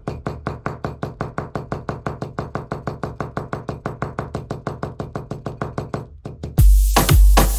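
Small hammer tapping rapidly and evenly, about six blows a second, on a leaf laid on felt over a concrete floor, pounding the leaf's pigment into the felt for a Tataki Zome print. About six and a half seconds in, the tapping gives way to loud electronic dance music with a heavy kick drum.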